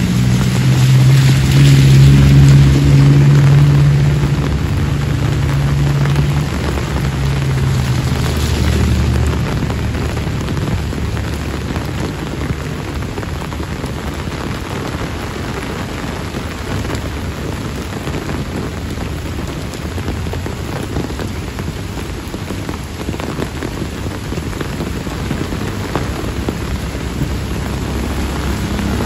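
Heavy rain falling steadily on a wet paved lane. For the first several seconds a passing vehicle's engine hums low and loud over it, then fades, leaving the rain alone.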